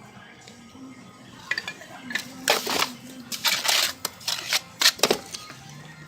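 Hard clinks and short scrapes of stone veneer pieces knocking and sliding against each other as they are handled and tried for fit, in an irregular run of a few seconds.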